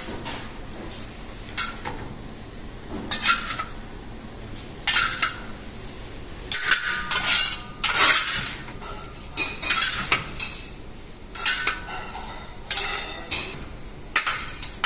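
Metal utensils clinking and scraping against a large metal pan as shredded cabbage-and-carrot filling is tossed and mixed by hand, with irregular strokes about once a second.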